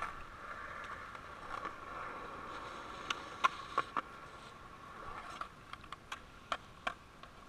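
Skateboard wheels rolling steadily over concrete, with a string of sharp clicks and knocks from about three seconds in.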